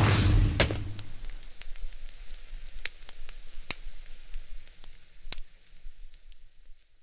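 Frying-pan sizzle with scattered sharp crackling pops, fading out gradually. It opens with a whoosh and a low rumble that die away within the first second.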